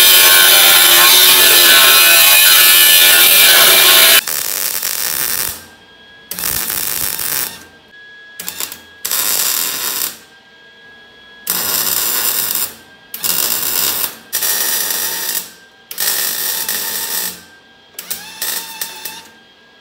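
An angle grinder grinds a welded-up joint in a steel frame rail, running steadily for about four seconds and then cutting off. Then come about eight short bursts of electric arc welding, each about a second long with brief pauses between, as the shortened frame rail is welded back together.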